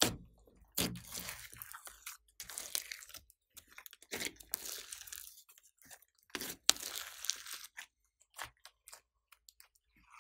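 Glossy slime being squeezed, stretched and folded by hand, giving sticky crackling squelches and sharp clicks in irregular bursts with short pauses between them.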